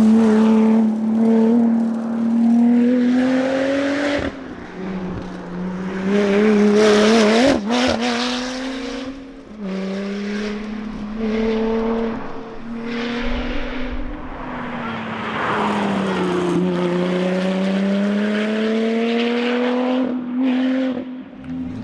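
Lotus Exige Sport 350's supercharged 3.5-litre V6 running hard between shifts. Its pitch climbs slowly, then drops sharply at gear changes about four, nine and sixteen seconds in.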